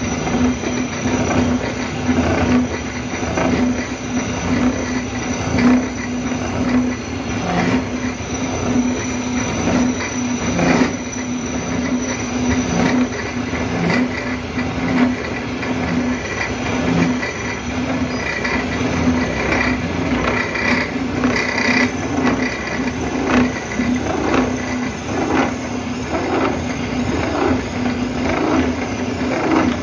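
Milling machine's toothed disc cutter cutting a jaw slot into a metal clutch blank. Its steady machine hum carries a pulse about once a second, with a metal-on-metal squeal that grows louder about two-thirds of the way through.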